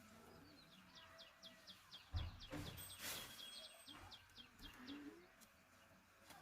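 A bird calling in a rapid series of short, high, downward-sweeping notes, about four a second, stopping about five seconds in. A thump sounds just after two seconds in, and a brief hiss around three seconds.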